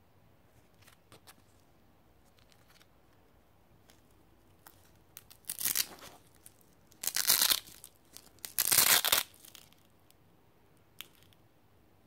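Hook-and-loop (Velcro) backing of a morale patch being peeled apart three times, each a short rasping rip about a second and a half apart, with faint handling rustles and ticks before and after.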